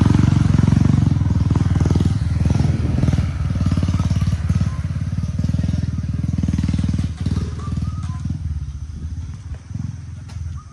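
Motorcycle engine running at low revs as the bike pulls away, its steady pulsing note fading over the last few seconds as it draws off.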